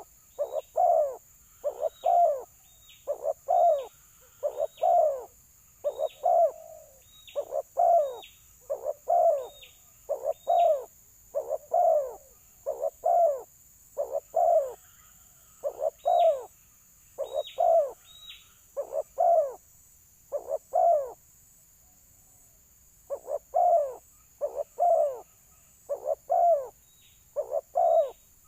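Spotted doves (balam) cooing in a territorial fighting call: short repeated coos, often paired, at about one a second, with a short pause about three-quarters of the way through. A wild dove and a caged decoy dove are calling against each other.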